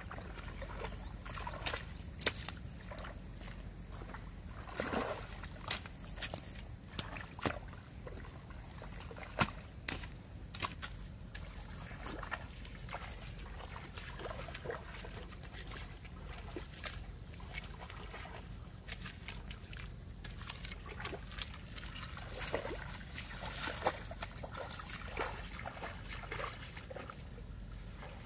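A hoe working wet mud on a rice-paddy bund: irregular wet slaps and scrapes of the blade in the mud, with sloshing and trickling water.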